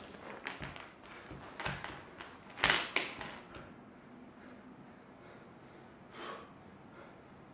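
A person lying on a wooden stage floor shifting their body, making a few soft rustles and knocks, the loudest about three seconds in, then a short breath about six seconds in.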